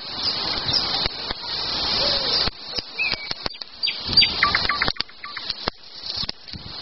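Small birds chirping, a few short repeated notes in the middle. Over them, a rustling hiss with many sharp clicks.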